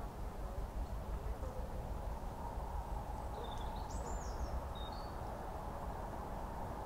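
A small bird chirping a few times between about three and five seconds in, over a steady low rumble and hiss.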